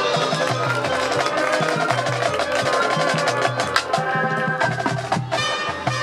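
High school marching band playing its field show, with rapid percussion strikes over sustained chords from the winds and front-ensemble keyboards.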